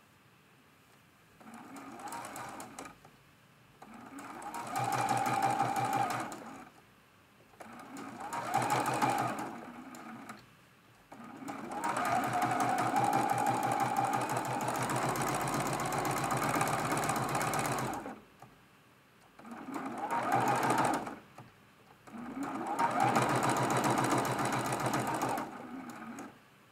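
Juki sewing machine stitching in six stop-and-start runs of a few seconds each, the longest about seven seconds near the middle. It runs without squeaking, its bobbin area freshly cleaned of a big ball of lint.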